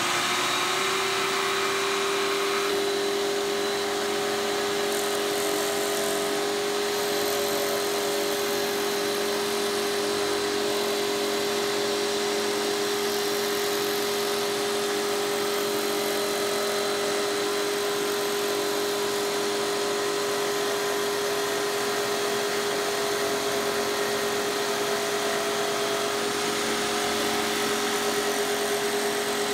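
Benchtop scroll saw running steadily with a constant hum, its reciprocating blade cutting a rough curve through a thin sheet of luan plywood.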